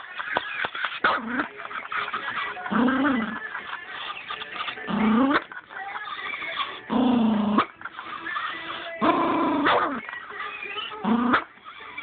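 Chihuahua growling and snapping at a TV remote held to its mouth, with a loud snarling burst about every two seconds and short clicks of teeth on the plastic between them.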